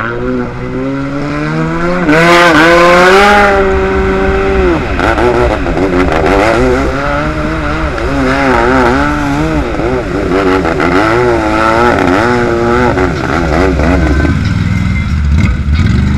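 Jet ski engine revving up and down again and again as it is ridden through shallow flood water, with a loud rush of noise about two seconds in. Near the end the engine settles to a lower, steadier pitch.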